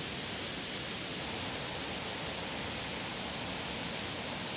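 Steady rushing noise with no distinct events: outdoor riverside ambience.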